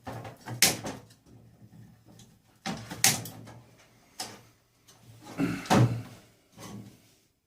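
Irregular clanks and clatters of scrap metal parts being handled and pulled apart by hand, with a few louder knocks and quieter rattling between them.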